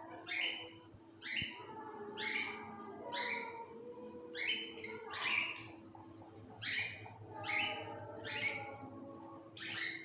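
Small caged parrots chirping repeatedly, about one short falling chirp a second, over a faint steady hum.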